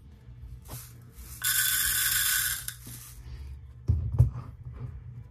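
Loose rhinestones rattling against a clear plastic box for just over a second, a steady gritty hiss. Near the end come a couple of dull thumps as the box is knocked down on the tabletop.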